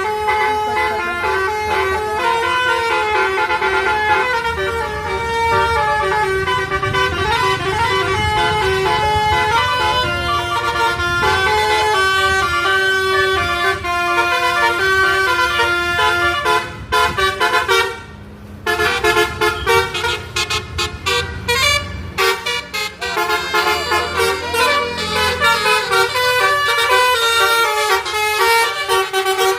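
Basuri (telolet) multi-tone bus horn playing a tune of stepped notes, with a short break about 18 seconds in.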